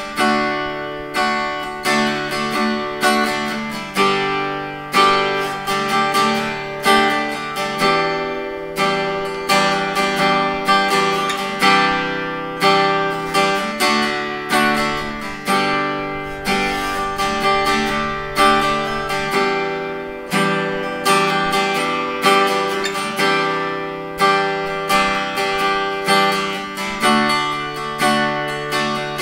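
Steel-string acoustic guitar strung with Ziko DUS silver-plated strings, 12 gauge, played as an unaccompanied piece. Chords are struck about once a second, each ringing out and fading before the next. The tone is tight, smooth and balanced.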